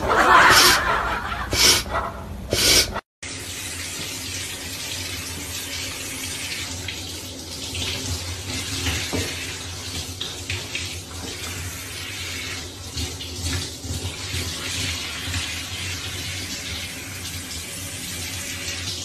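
Handheld shower head spraying water steadily over a wet cat: an even hiss of running spray. It follows a few seconds of louder, different sound that breaks off about three seconds in.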